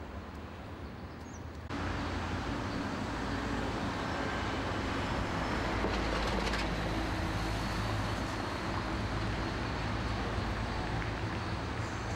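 City street ambience: steady traffic noise with a low rumble, which jumps louder at a cut about two seconds in.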